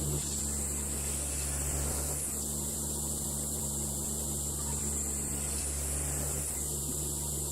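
Sawmill running steadily: a low engine hum under an even high hiss.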